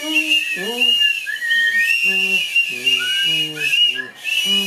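Many paper party blowers tooting at once: a jumble of overlapping, wavering high whistles, with short lower-pitched tones mixed in among them.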